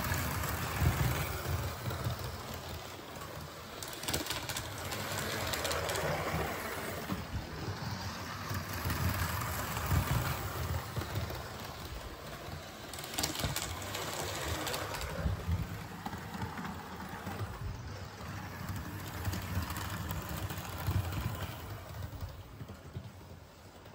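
Model HST train running along the layout's track: the small electric motor whirring and the wheels rumbling on the rails, getting louder and quieter in turn, with a few clicks along the way.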